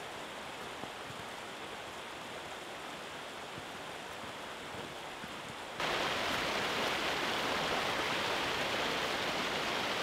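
Rushing water of a rocky mountain stream cascading over boulders, a steady noise. It is fainter at first, then suddenly much louder about six seconds in.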